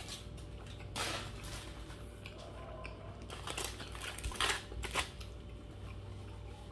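Aluminium foil burger wrapper crinkling in several short bursts as the burger is handled, the loudest cluster about three and a half to five seconds in, over a low steady hum.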